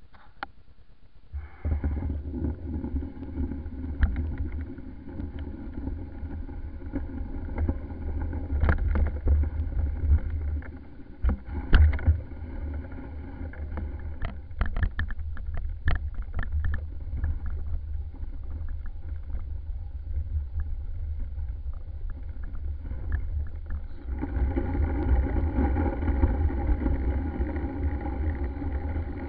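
Small motor vehicle's motor running steadily with an even whine as it rides over snow, picked up by a handlebar-mounted camera, with low wind rumble on the microphone. Knocks and rattles from bumps come thick in the middle stretch, and the whine gets louder after a cut near the end.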